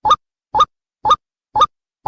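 White-breasted waterhen (ruak-ruak) call notes, short and alike, repeated evenly about twice a second with silence between them. Each note rises slightly in pitch. It is a looped lure call used for trapping.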